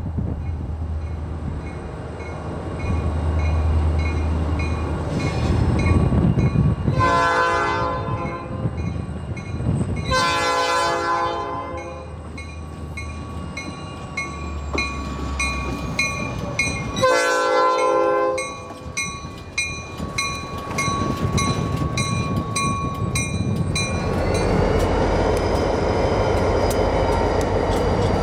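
Two IORY diesel locomotives running light with a steady low engine rumble, sounding three horn blasts, the middle one longest. Near the end the lead locomotive rolls close past with a rising wheel squeal.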